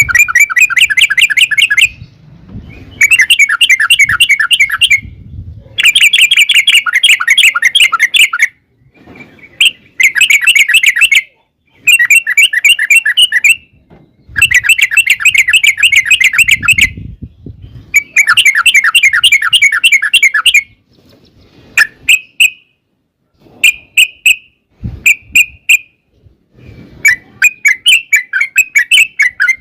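Yellow-vented bulbul (trucukan) singing loudly: a run of fast, chattering rolling phrases, each lasting one to two and a half seconds, broken by short pauses. Toward the end these give way to shorter separate chirps.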